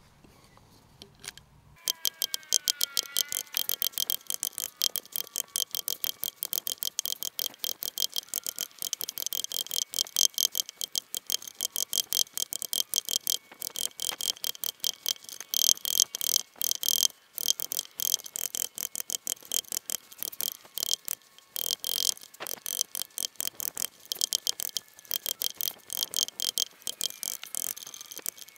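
Mallet driving a wood chisel into a green ironbark log to cut a mortise: a rapid, steady run of sharp knocks starting about two seconds in, pausing briefly a few times.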